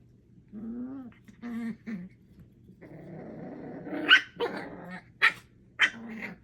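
Eight-week-old puppies play-fighting: low growls and grumbles, then a run of short, sharp, high yaps in the second half, the loudest about four seconds in.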